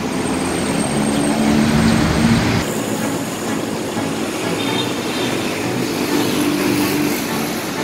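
Low rumble of street traffic and an LRT-2 light-rail train on the elevated track, with a steady hum. About two and a half seconds in the sound changes abruptly to a lighter traffic hum with faint high tones.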